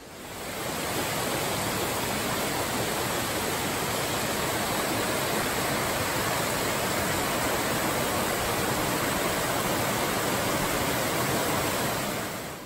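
A mountain creek rushing over boulders in small cascades: a steady, even rush of water that fades in over the first second and fades out near the end.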